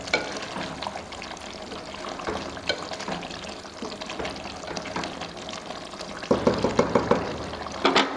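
A wooden spatula stirs chicken curry in a thin tomato gravy in an aluminium pot, giving wet sloshing with light scrapes against the pot. About six seconds in there is a run of louder strokes, then a sharp clack near the end as the spatula is put down.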